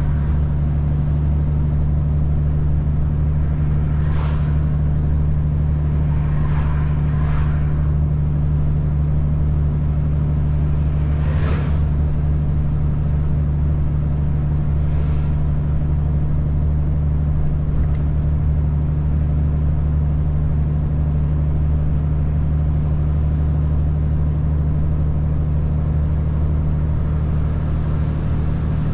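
Car driving on a wet road: a steady low engine and road drone, with a few brief swishes in the first half.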